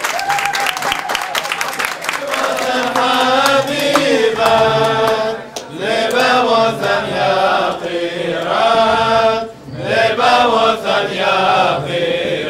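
A group of men's voices singing a chant together in phrases, with quick hand clapping over the first couple of seconds.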